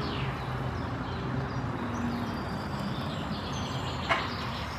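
Diesel engine of a JCB telescopic wheel loader running steadily as its boom raises a pair of pallet forks, with birds chirping and a single knock about four seconds in.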